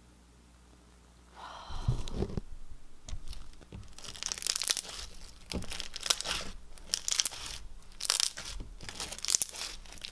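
Thick slime full of white beads being squeezed and kneaded by hand, starting about a second and a half in. The beads give a rapid run of crackling crunches, and the thick base clicks.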